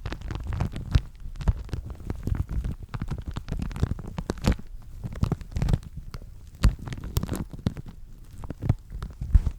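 Paper napkin being crinkled and scrunched close to a microphone: a dense, irregular crackling and rustling with a few sharper, louder snaps, the loudest about two-thirds of the way in and near the end.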